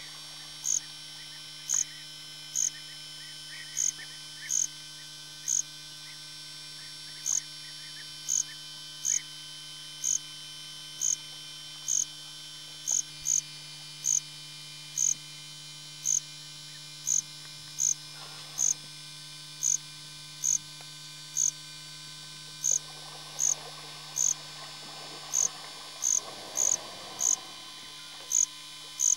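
Steady electrical hum made of several fixed tones, with short high-pitched chirps repeating irregularly about once or twice a second throughout. Near the end a faint rustling haze comes and goes.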